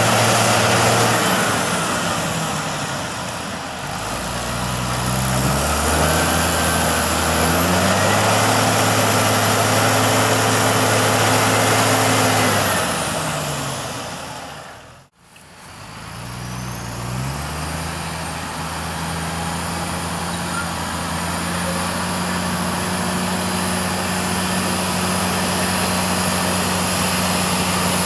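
Deutz-Fahr Agrotron tractor diesel engines working under load with slurry tankers in mud, the revs stepping up and down several times. The sound fades out briefly about halfway through, then comes back as a steady engine note.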